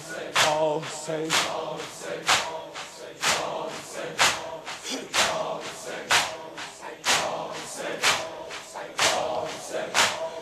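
A congregation of mourners beating their chests in unison (sineh-zani) at a steady beat of about one stroke a second, with crowd voices chanting faintly between the strokes.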